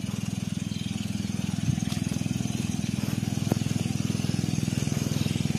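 Small motorcycle engine running steadily while riding, a fast, even pulsing drone.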